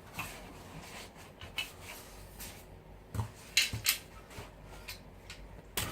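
Light clicks, knocks and rubbing from the parts of a folding laptop table being handled, with a quick cluster of knocks about three and a half seconds in and a sharper knock near the end.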